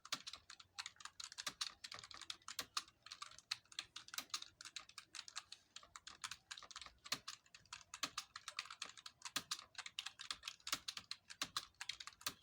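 Fast, continuous typing on a computer keyboard, copying English text in a timed typing-speed test: a steady stream of key clicks, several a second, with no pauses.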